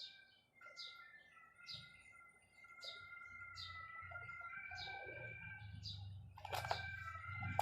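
A small bird chirping over and over, a short falling chirp about every half-second, over faint steady tones and a low hum. Right at the end comes one sharp, loud click.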